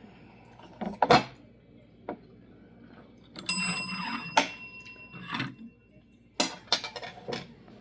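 Service bell struck once by a cat, its press-top missing, ringing for about a second, among several sharp clicks and knocks.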